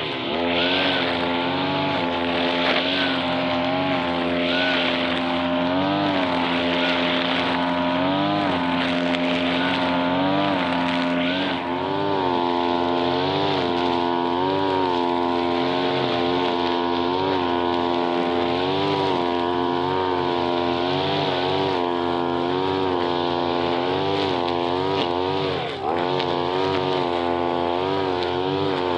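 Brush cutter engine running steadily at high speed, its pitch swelling up and settling back every second or two as the throttle is worked, with a brief dip in speed near the end.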